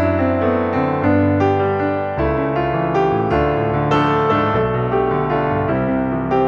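Background piano music: a keyboard melody over sustained chords at a steady, even pace.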